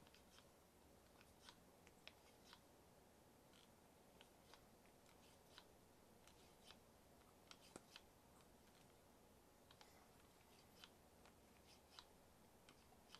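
Near silence broken by faint, irregular clicks and ticks from a Handpresso Pump hand-pumped espresso maker being worked to build pressure.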